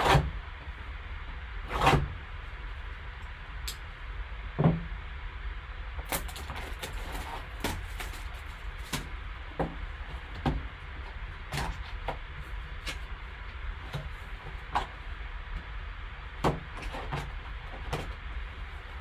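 Plastic shrink wrap being peeled off a cardboard trading-card box and the box being slid open by gloved hands: irregular crinkles, rustles and short cardboard scrapes.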